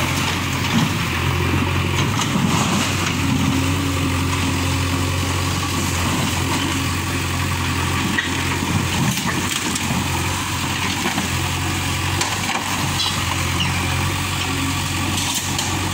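Diesel engine of a JCB backhoe loader running steadily while its arm knocks down a brick wall, with a few scattered knocks and clatter of falling masonry.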